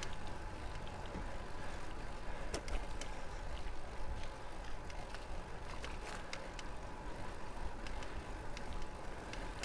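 Steady rumble and hiss of a road bike being ridden on pavement, with a scattering of light sharp clicks.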